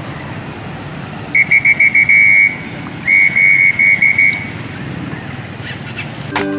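Street traffic noise, broken by two runs of rapid, high-pitched beeps, each a quick string of five or six short pulses, a little over a second in and again about three seconds in.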